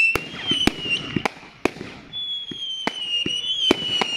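Fireworks going off: a string of sharp bangs and pops about every half second, over a high whistle that slowly falls in pitch, breaking off about a second in and starting again about two seconds in.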